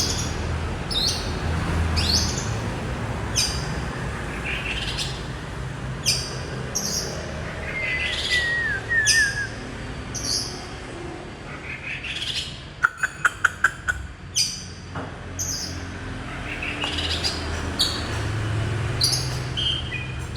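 Birds chirping at dusk: short, high, downward-sweeping chirps repeated every second or so. There is a brief falling whistle near the middle, and a quick run of about eight sharp clicks a little after that.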